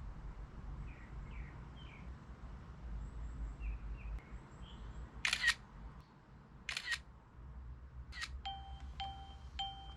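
Three camera-shutter clicks about a second and a half apart, then three quick electronic beeps, like a phone app's scan sounds, over a low steady hum.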